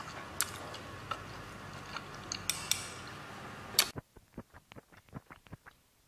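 Metal tongs clicking and tapping against the dish and the skewered sausages, over a steady background hiss. About four seconds in the hiss cuts out, and a quick run of chewing and mouth smacks follows.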